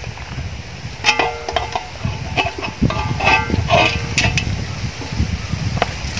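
Knife and raw chicken knocking against a large aluminium pot several times, each knock ringing briefly with a metallic tone, mostly between about one and four and a half seconds in. Wind rumbles on the microphone underneath.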